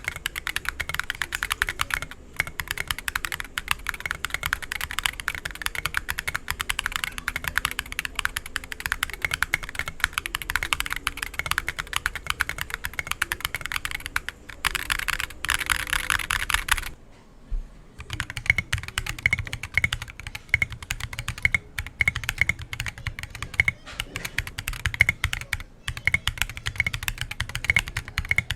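Fast, continuous typing on a mechanical keyboard with a concrete case and tactile White Jade switches, many keystrokes a second. The typing stops briefly past the middle and resumes with a deeper thud under each keystroke.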